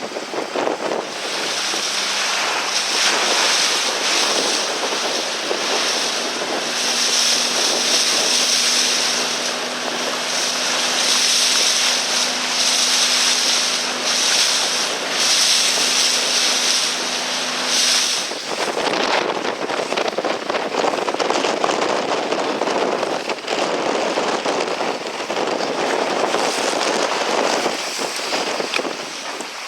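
Strong wind buffeting the microphone and water rushing and splashing past a Finn dinghy sailing in heavy wind. A faint steady low hum runs under it for most of the first half. About 18 seconds in, the bright hiss drops away and a deeper rush of wind and water continues.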